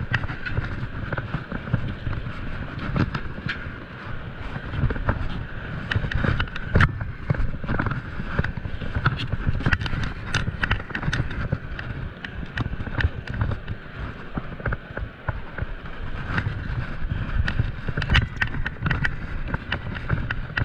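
Wind buffeting the microphone and water lapping and slapping around a small boat, with frequent short clicks and knocks scattered throughout.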